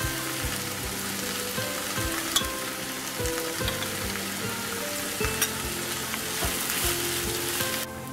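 Okra frying in oil in a nonstick pan, a steady sizzle as ground spice powder is spooned in and stirred with a wooden spatula, with a couple of sharp clicks from the utensils. The sizzle cuts off abruptly near the end.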